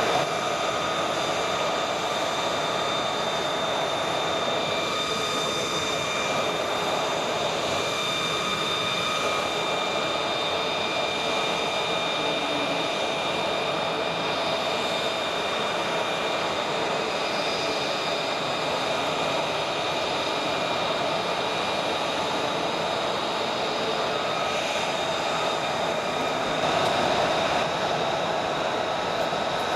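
Lockheed Martin F-35B Lightning II's Pratt & Whitney F135 turbofan idling: a steady jet whine with several high held tones over a broad rush, briefly a little louder near the end.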